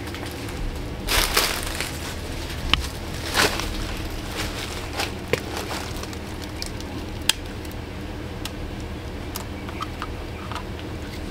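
Handling noise as a trail camera is fastened to a tree trunk: scattered rustles and crunches, loudest twice in the first few seconds, with a few sharp separate clicks, over a steady low rumble.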